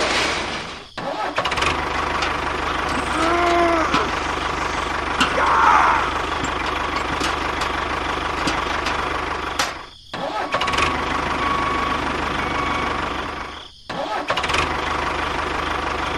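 A DIY mini tractor's small engine running steadily. It drops out abruptly three times, about a second, ten seconds and fourteen seconds in, and picks up again each time.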